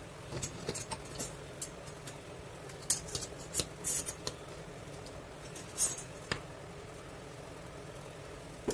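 Small drilled wooden blocks being handled and fitted onto a hacksaw blade: a scattered series of light clicks and knocks, bunched in the first six seconds, with one more at the end.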